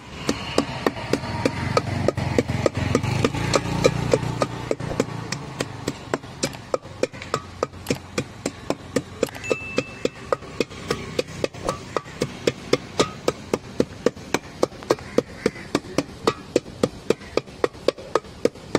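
Wooden stick pounding masala in an aluminium pot, knocking against the pot about four times a second. A low rumble sits under the first few seconds.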